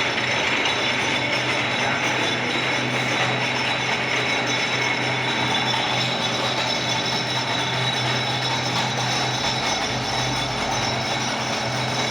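Lathe running steadily: a dense, even mechanical clatter over a steady low hum, with a few steady high tones.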